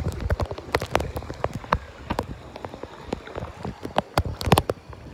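Lazy-river water splashing and dripping: irregular sharp splashes and drops, several a second, over a low wash of moving water.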